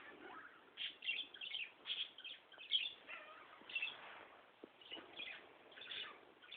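Small pet birds chirping faintly in short, irregular chirps, several each second.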